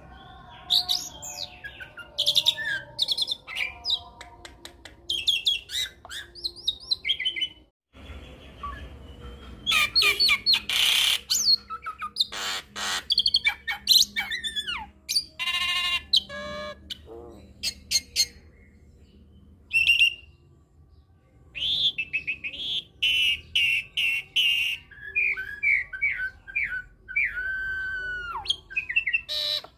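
A hybrid Nias hill myna x Asian pied starling (jalak Nias x jalak suren) singing a varied song of whistles, chirps, harsh squawks and quick rattling trills. The sound cuts out for a moment about eight seconds in.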